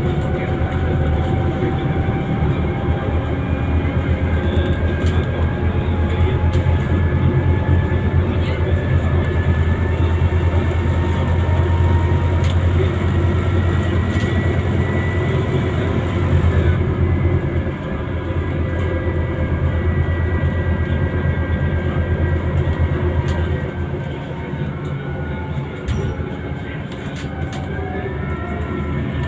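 Scania Citywide CNG city bus heard from inside the passenger cabin while driving: a steady low engine drone with whining tones that slowly rise and fall in pitch as it gathers and loses speed. The drone eases about two-thirds of the way through, and a rising whine starts near the end as it pulls away again.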